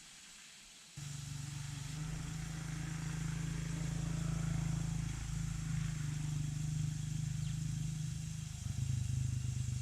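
A low, steady motor or engine hum that starts suddenly about a second in and shifts lower in pitch near the end.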